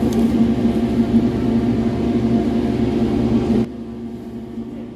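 Steady electrical hum of a refrigerated display case, a low drone that drops off sharply about three and a half seconds in, leaving a fainter hum.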